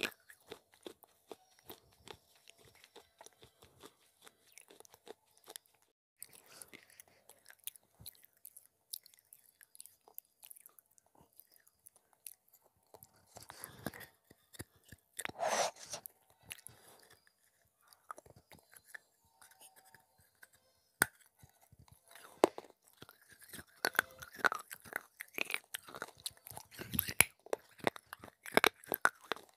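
A person chewing and crunching pieces of baked clay pot, with sharp crackling clicks throughout. There is one louder burst about halfway through, and the crunching grows denser near the end.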